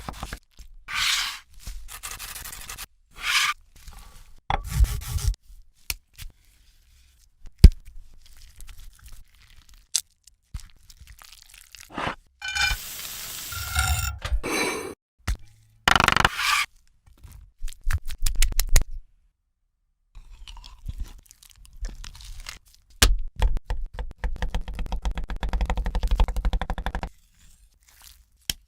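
Food-preparation handling sounds: a string of separate scrapes, knocks and cracks, then a fast run of clicks lasting a few seconds near the end.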